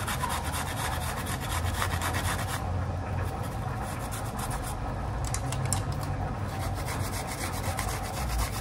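Apple being grated on a small handheld metal grater: fast, repeated rasping strokes of fruit against the metal teeth.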